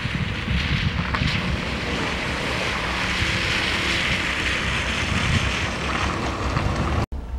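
Skoda Octavia estate driving past on a wet gravel road: tyre hiss and crunch over a low engine rumble, swelling as it comes close and easing as it goes by, with wind on the microphone. The sound cuts off abruptly near the end.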